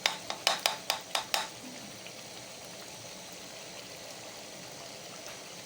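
A quick run of about six sharp taps or clicks in the first second and a half, then the tomato stew simmering and sizzling steadily in the pot.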